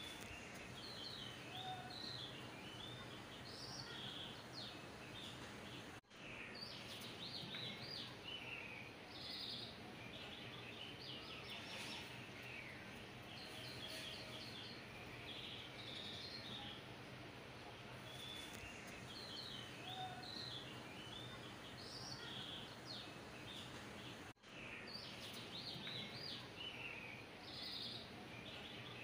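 Faint small birds chirping in short, high calls over a steady low hum. The sound cuts out briefly twice.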